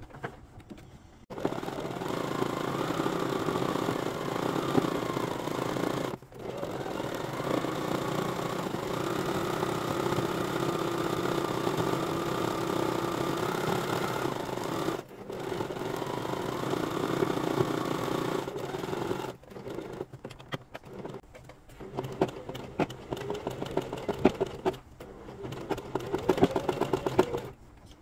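Regular home sewing machine stitching zigzag embroidery, its motor whine rising and falling slightly with speed. It runs in long stretches with brief stops about 6 and 15 seconds in, then in short stop-start bursts near the end.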